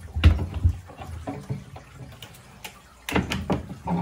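Hinged plywood lid of a boat bench seat being unlatched and lifted open on stainless steel door hinges: a cluster of wooden knocks and metal clicks at the start, a few lighter clicks about a second in, and more knocks about three seconds in.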